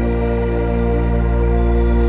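Ambient music: a sustained organ-like chord held over a deep low drone.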